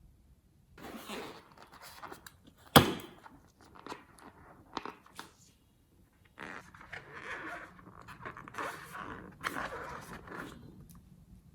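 Slime being squeezed and stretched by hand, in irregular crackling, squelching bursts, with one sharp pop about three seconds in.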